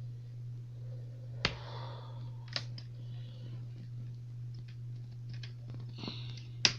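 Plastic clips of a laptop screen bezel snapping loose as it is pried off by hand: a sharp crack about a second and a half in, then several smaller clicks, over a steady low hum.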